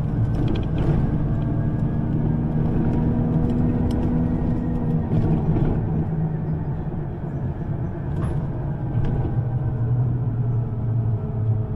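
City bus driving, heard from inside: a steady low engine and drivetrain rumble with a humming tone that shifts a little in pitch.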